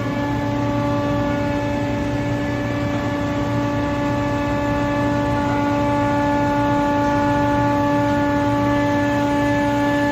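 Hydraulic copper baler running: a steady, loud mechanical whine holding one pitch with its overtones, over a low rumble.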